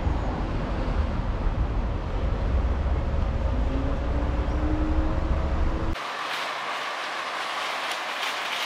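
Street traffic: a deep vehicle rumble with a faint motor whine slowly rising in pitch. It cuts off abruptly about six seconds in to lighter, hissing street noise.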